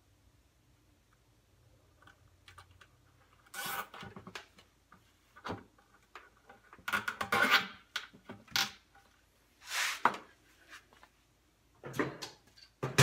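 Rebar being fastened against the wall of a plastic bucket with zip ties: a series of short scraping and rasping handling noises. They start about three and a half seconds in and are loudest around seven to eight seconds.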